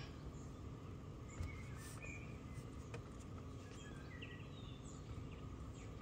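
Faint steady background noise with a few short, high chirps and scattered faint clicks.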